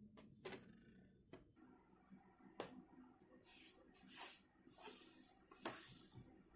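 Faint handling sounds: a few light clicks and several short rustles.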